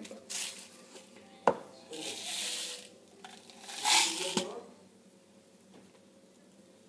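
A plastic sweet packet rustling in several short bursts as sweets are picked out, the loudest about four seconds in, with a sharp click about one and a half seconds in.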